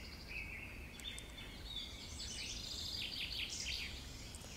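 Songbirds singing in woodland, with a quick run of short repeated notes starting about two seconds in, over a low steady rumble.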